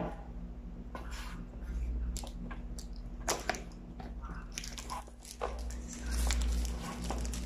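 A new smartphone's retail box and its plastic packaging being handled and opened: scattered short taps, scrapes and crinkles over a steady low hum.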